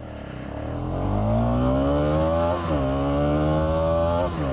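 Bajaj Pulsar NS200's single-cylinder engine at full throttle from a standing launch, its aftermarket exhaust fitted with a dB killer. The engine note climbs steadily in pitch, drops sharply at an upshift about two and a half seconds in, climbs again, and drops at a second upshift near the end.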